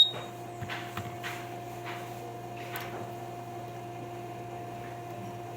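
Steady electrical hum with a few faint clicks and light taps.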